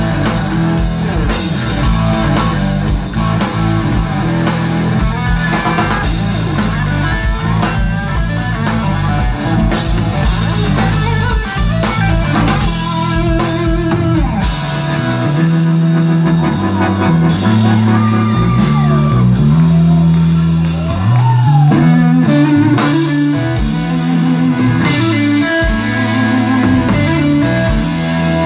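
Live rock band heard through the PA from within the crowd: electric guitar playing lead lines with bent notes over bass guitar and drums, with no singing.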